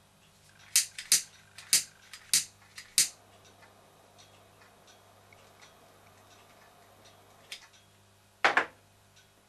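Handheld piezo gas lighter clicking as it is fired at a solid fuel tablet to light the steam engine's burner: five sharp clicks within the first three seconds, then a loud double click near the end.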